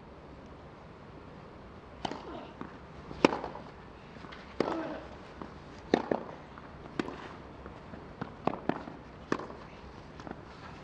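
Tennis racquets striking the ball in a baseline rally on clay: sharp pocks a little over once a second, starting about two seconds in, with quieter knocks between them.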